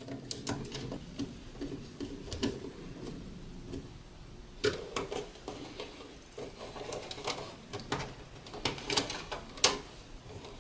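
Irregular small clicks, taps and rustles of insulated wire being handled and fitted to contactor coil terminals in an electrical control panel.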